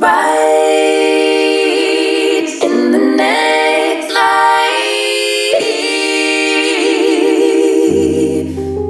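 Background music: a solo voice singing long held notes with vibrato, without accompaniment, until a low sustained keyboard note comes in near the end.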